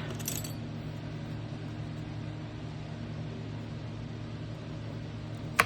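Steady low hum with an even hiss, with one sharp click near the end.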